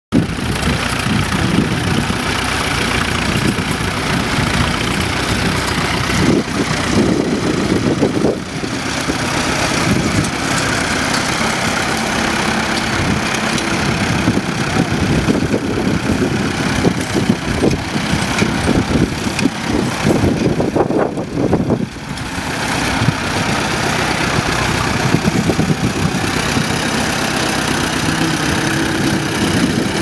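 Fordson Model N tractor's four-cylinder engine running steadily as it pulls a two-furrow plough, the sound dipping briefly about eight seconds in and again just after twenty seconds.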